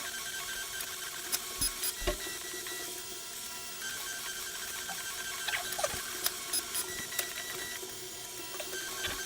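3D printer's stepper motors whirring as the print head moves, the whine changing pitch every second or two, with scattered light clicks.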